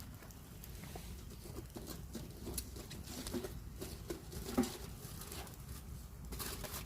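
Campfire crackling with scattered small pops and clicks, and one louder knock about four and a half seconds in.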